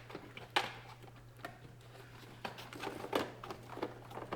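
Plastic interior door trim panel of a 2003 Nissan Altima being handled and fitted against the door, with scattered light knocks, rubs and clicks of plastic and wiring.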